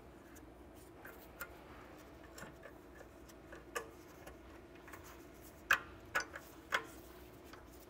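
Small metallic clicks and taps as an anti-rattle clip is worked into place on a rear brake caliper, with a few sharper clicks close together near the end, over a faint steady hum.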